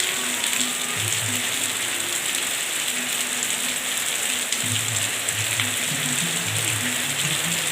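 Heavy rain falling steadily: a dense, even hiss of rain on surfaces, with individual drops ticking through it.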